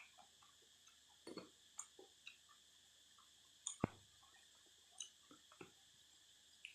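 Close, faint mouth sounds of someone eating noodle soup: scattered wet chewing and lip smacks with one sharp click a little under four seconds in. Behind them runs a steady high-pitched drone of cicadas.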